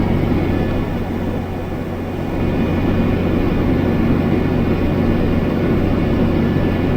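Tractor engine running steadily under planting load, heard from inside the cab as a loud low drone; it eases slightly about a second in and picks back up after about two and a half seconds.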